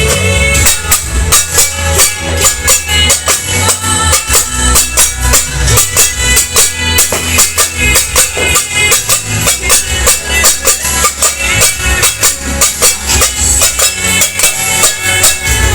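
Loud music with a fast, steady beat of sharp percussive hits, about three to four a second.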